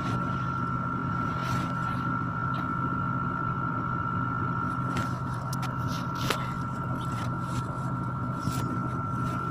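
Steady machine hum with a thin high whine, like a small motor running. A couple of soft clicks come about five and six seconds in.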